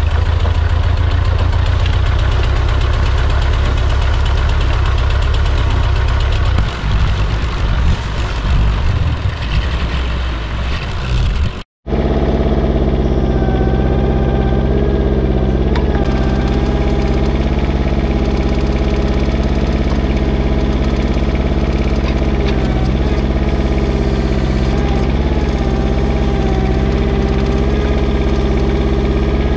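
A heavy engine running under load while a log is dragged on a chain. About twelve seconds in, after a brief silent cut, a mini excavator's diesel engine runs steadily with a wavering hydraulic whine as its arm lifts a log.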